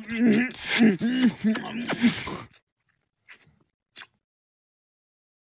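A cartoon character's voice moaning with pleasure in a quick string of rising-and-falling sounds. It cuts off about two and a half seconds in, leaving near silence with a couple of faint clicks.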